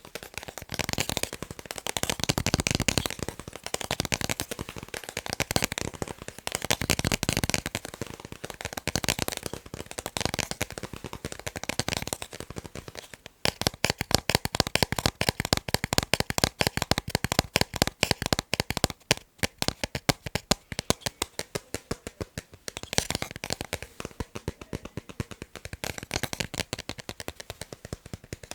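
Fast tapping on picture frames: rapid clicking taps. For the first half they come in bursts that swell and fade; from about halfway on they turn sharper and more separate.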